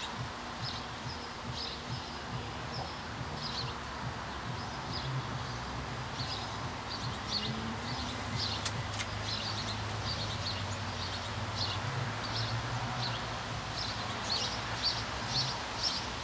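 Small songbirds chirping, short high notes repeated irregularly throughout, over a steady low background hum.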